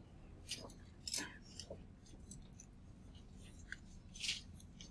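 Faint room sound: a low steady hum with a few scattered small clicks and rustles, the handling noises of a quiet classroom at work.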